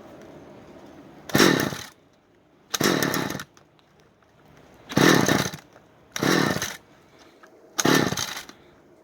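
Small two-stroke engine being pull-started from cold: five short bursts, one per yank of the recoil starter cord, and the engine does not keep running.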